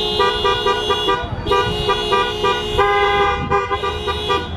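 Car horns honking in long, held blasts, two horn pitches overlapping, with a short break just over a second in.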